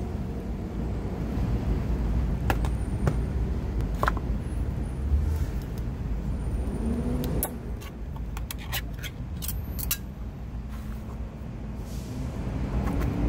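Low steady background rumble, with sharp clicks and taps as a plastic food dish is set down on a tarp and cat food is spooned out of a can, several quick taps a little past the middle.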